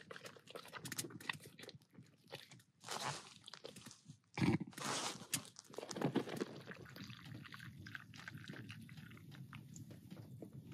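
Alaskan Malamute eating dry kibble from a collapsible bowl: irregular crunching and chewing, with a few louder crunches between about three and six seconds in.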